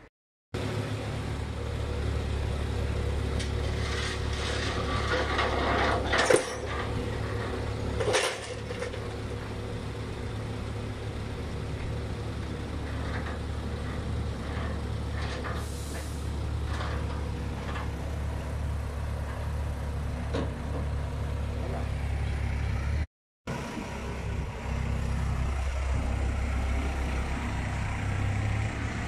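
Diesel engine of a crane truck running steadily with a low rumble while a mini excavator is loaded onto its tilted bed. Two short, sharp noises come about six and eight seconds in.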